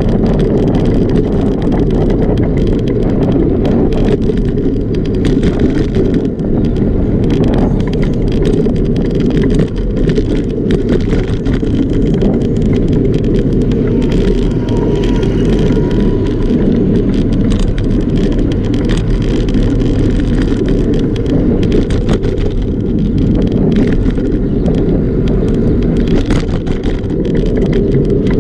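Steady rumble of wind on the microphone and road vibration from a moving bicycle, with scattered small rattles and knocks as the bike rolls over the pavement.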